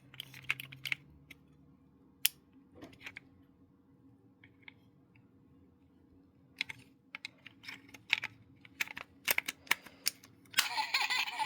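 Scattered light plastic clicks and taps, few at first and more frequent in the second half, as the toy's plastic housing is handled and pressed back together, with a short stretch of rustling near the end.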